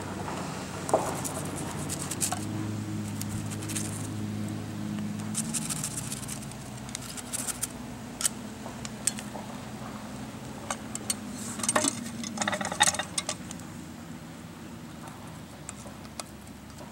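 Scattered clicks, taps and scrapes of a long-handled pie iron being handled on the ground as the squeezed-out bread is knocked off its edges and its clamp is worked open, with the loudest burst of clicking about twelve seconds in. A steady low hum sits underneath, fading out about two-thirds of the way through.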